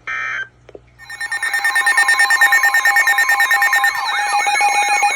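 Electronic alert sounds. A short beep comes first, then about a second in a loud alarm builds: a fast pulsing ring over steady tones. About four seconds in, a siren sweeping up and down about four times a second joins it.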